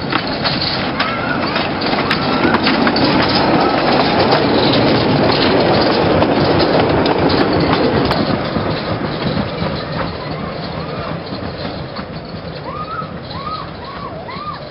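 A 15-inch gauge steam locomotive hauling goods wagons, running along the line with its wheels clicking over the rail joints. It grows loudest about halfway through, then fades as the train draws away.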